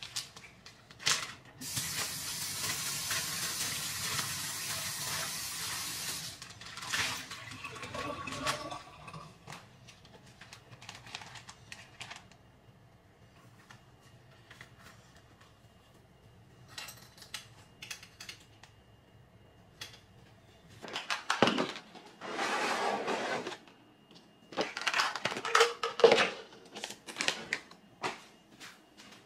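Kitchen tap running into a sink for about four seconds, followed by scattered clicks and knocks of kitchen handling. Near the end comes a second short run of water and a clatter.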